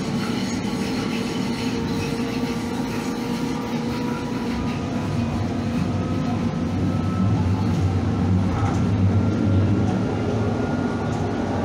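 Calgary CTrain light-rail car running along the track: a steady rumble with a thin whine that slowly drifts in pitch. The low rumble grows louder about halfway through.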